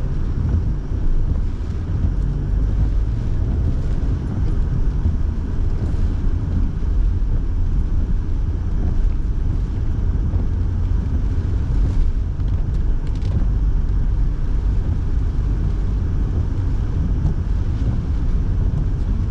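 Steady in-car noise of a car driving on wet roads: a low rumble from engine and tyres, with the heater fan blowing. A few faint clicks here and there.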